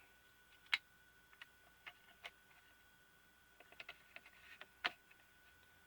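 Light clicks and ticks of small tools and plastic parts being handled while a pocket projector is taken apart. The clicks come one by one, then in a short flurry, with the sharpest click just before the end.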